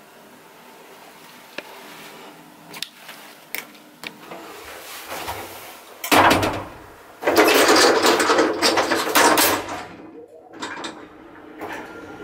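Passenger elevator's folding car doors closing with a loud, rattling metal clatter, after a few sharp clicks from the elevator's gear. Near the end, after a short pause, the car's machinery starts up for the run.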